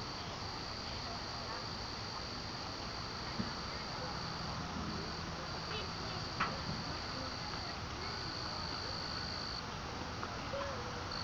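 Crickets chirring: a steady high trill that breaks off for a moment every second or two, over a low hiss, with two brief sharp knocks partway through.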